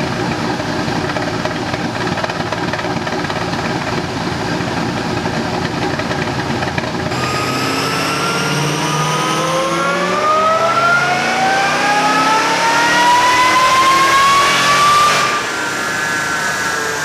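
Supercharged Pontiac GTO V8 on a chassis dyno: running steadily for about seven seconds, then a full-throttle pull with the engine note climbing steadily in pitch for about eight seconds, ending abruptly as the throttle is lifted about fifteen seconds in.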